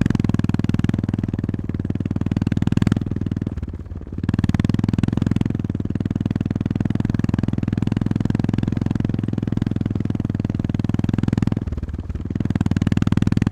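Honda GB350S single-cylinder four-stroke engine pulling steadily with a pulsing exhaust note. The throttle is eased off briefly twice, about three seconds in and again near the end, before the engine pulls again.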